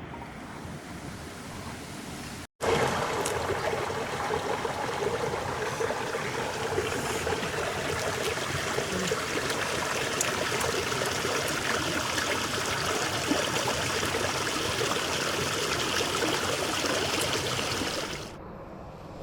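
Running water, a steady rush with no pitch. It breaks off for an instant about two and a half seconds in, comes back louder, and drops back down near the end.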